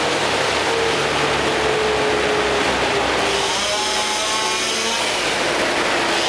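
Loud, steady engine-driven machinery of a tree-removal job. About halfway through, an engine's note comes up clearly and changes pitch in steps.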